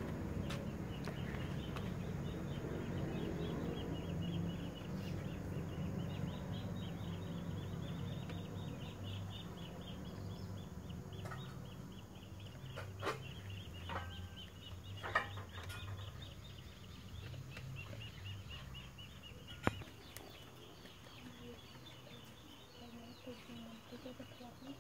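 A steady chorus of high, rapidly pulsing chirps runs throughout. A low rumble fades away over the first ten seconds or so, and a few sharp clicks fall in the second half.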